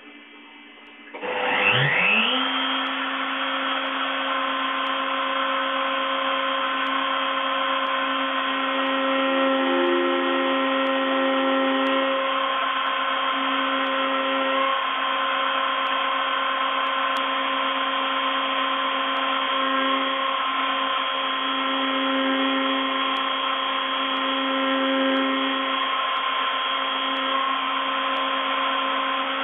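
CNC milling machine spindle spinning up about a second and a half in, then running steadily with a constant whine while the end mill cuts a block turning on the rotary axis.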